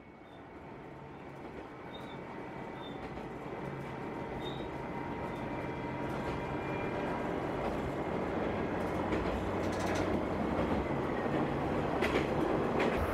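Diesel railcar running along the track, its engine hum and wheel rumble fading in and growing steadily louder, with sharp clicks of the wheels over rail joints in the last few seconds.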